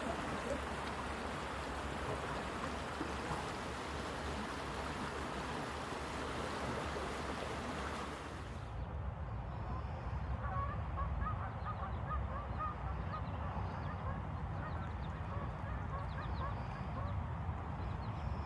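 Running water, a steady rushing hiss, cuts off suddenly about eight seconds in. Then waterfowl call in a rapid run of many short calls.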